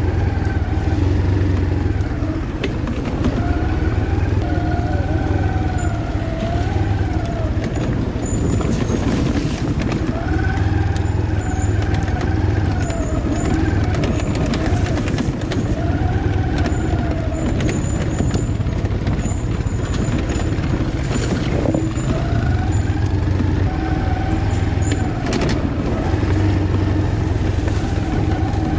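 ATV engine running under way on a dirt trail, its revs rising and falling again and again as the throttle is worked, with a few brief knocks from the quad.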